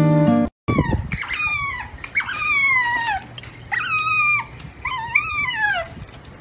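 An otter calling in a series of about five high-pitched squeals, each sliding down in pitch. Acoustic guitar music cuts off abruptly just before the calls begin.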